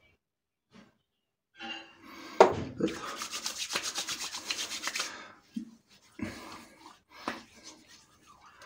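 Wet hands slapping aftershave splash onto the face: one sharp slap about two seconds in, then quick rhythmic patting and rubbing of palms on cheeks and neck, with slower rubbing again near the end.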